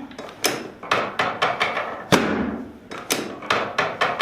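A chiropractic treatment table clacking: a string of about a dozen sharp, irregularly spaced knocks, each with a short ringing tail, the loudest about two seconds in.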